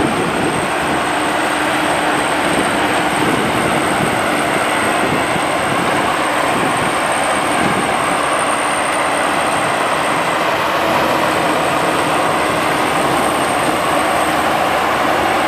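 Maxxi Bimo combine harvester running steadily while harvesting rice: a dense, even engine and threshing noise with a thin high whine that drops out briefly about ten seconds in.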